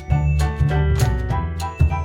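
Background music with a steady beat and bright, pitched instrument notes.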